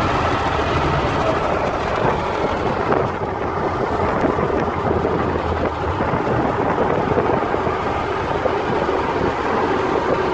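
Inside a car's cabin at highway speed, driven hard in a race: a loud, steady mix of engine, tyre and wind noise. A heavier low rumble at the start eases slightly about three seconds in.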